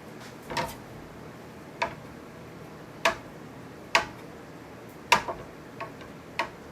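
Knife chopping mushrooms on a cutting board: sharp, separate knocks at an uneven pace, about one a second, with a quick pair a little past the middle.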